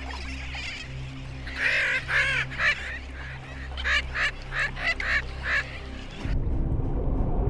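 Seabirds calling: a run of harsh, wavering calls in two bouts of several each. About six seconds in, a low rushing noise takes over.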